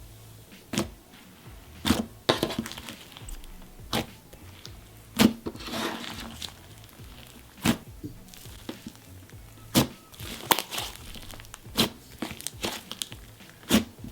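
Hands kneading and squeezing a soft pink butter slime made with Daiso clay, giving irregular sticky pops and clicks about every second or two, with squishing between them. Faint background music runs underneath.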